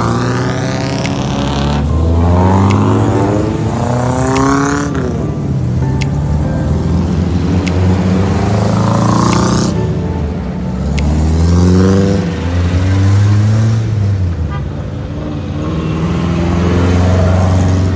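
Engines of small modified off-road 4x4s, Suzuki Jimny (SJ-series) types, driving past one after another. Each engine's pitch rises as the vehicle accelerates away, several times over, with a few sharp clicks between.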